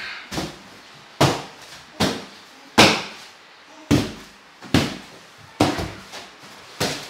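Repeated sharp slaps, roughly one a second and a little uneven, each dying away quickly: a duster being swatted against a sofa.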